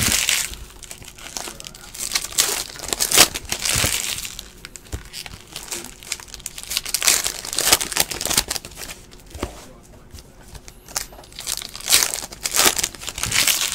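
Plastic foil wrappers of Donruss basketball card packs crinkling and tearing as packs are ripped open by hand, in several short spells with quieter handling between.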